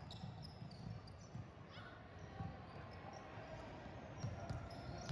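Basketball dribbled on a gym's hardwood court: a series of dull bounces at an uneven pace, with a few short high sneaker squeaks and the faint hum of a large hall.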